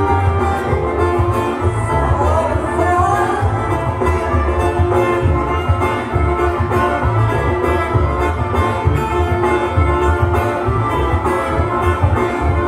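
A band playing dance music with a steady pulsing bass beat.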